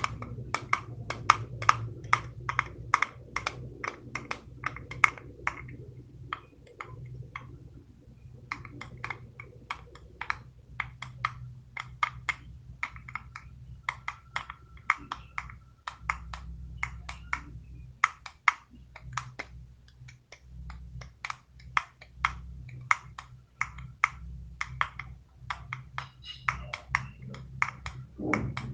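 Fidget toys being clicked by hand: quick runs of sharp, keyboard-like clicks, several a second, broken by short pauses.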